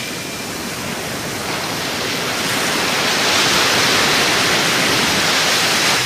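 Sea surf washing against rocks at the foot of a cliff: a steady rush of water that slowly swells, then stops abruptly at the end.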